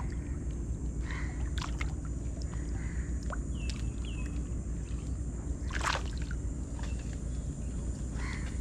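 Water sloshing around a small boat over a steady low hum, with scattered knocks and a sharp clack about six seconds in; two short high chirps a little past three seconds.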